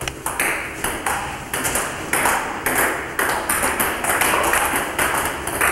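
Table tennis ball in a steady rally, clicking off the paddles and bouncing on the table in an even rhythm of about two hits a second.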